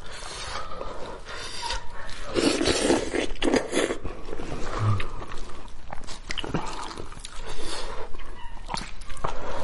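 Close-up eating sounds: wet chewing, sucking and smacking while meat is pulled off a goat head, in irregular bursts with a few sharp clicks.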